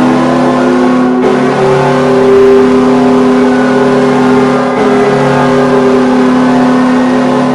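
Hockey arena goal horn sounding one long, loud, steady blast of several tones.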